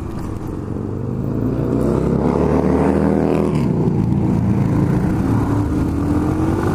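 Honda XR125's single-cylinder four-stroke engine accelerating, its pitch rising, then dropping at a gear change about three and a half seconds in and climbing again more slowly. The exhaust is loud, blowing through a series of holes in the silencer.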